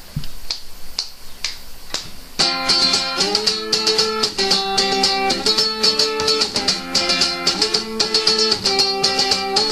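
Opening of a Greek punk rock song: light ticks about twice a second, then about two and a half seconds in the full band comes in with guitar chords and driving drums.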